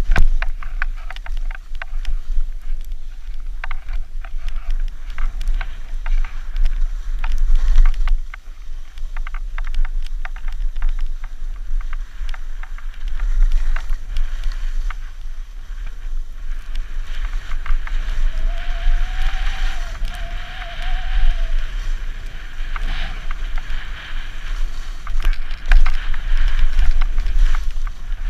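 Skis hissing and scraping through snow on a powder run, with wind buffeting the GoPro microphone in a steady low rumble and many short clicks and clatters throughout.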